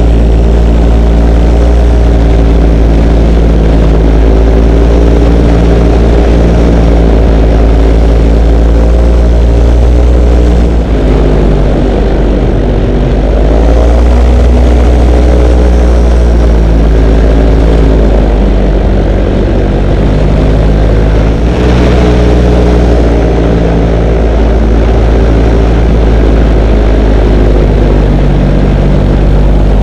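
Engine and propeller of a small propeller-driven aircraft, heard loud from a camera mounted on it, with heavy wind rumble on the microphone. The engine pitch drops about eleven seconds in and climbs back a few seconds later, then dips again near the twenty-second mark as the throttle is worked.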